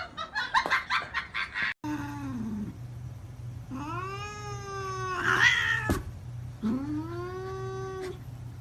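A cat yowling: a short falling call, then two long drawn-out meows, each rising and then held steady, over a low steady hum.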